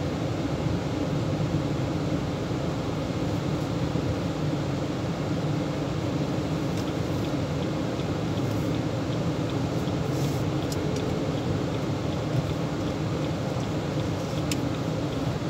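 Steady engine and road noise inside a Chevrolet Tahoe's cabin as it drives. A faint, even ticking runs for a few seconds around the middle, with a few light clicks.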